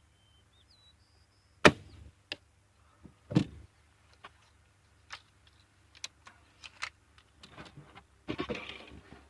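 A Gamo Swarm Whisper .22 break-barrel air rifle fires with one sharp crack, then a heavier metallic clunk follows about two seconds later. Small clicks and some rustling come after it, fitting the barrel being broken, cocked and a pellet loaded for the next shot.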